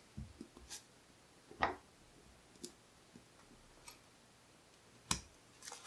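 Scattered small metal clicks and taps as tools work on a lock cylinder during disassembly, with two sharper clicks, one under two seconds in and one near the end.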